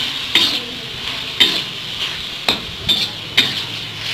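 Thin strips of beef with garlic sizzling in oil in a wok while a metal spatula stirs them, scraping and knocking against the pan about five times.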